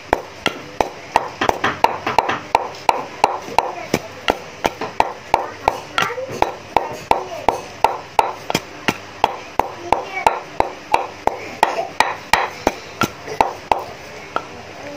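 Pestle pounding chili, garlic and herbs in a mortar: a steady run of knocks, about three a second, that stops shortly before the end.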